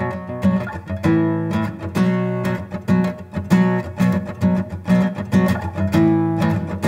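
Acoustic guitar playing a rhythmic pattern of struck and plucked chords, with no voice yet.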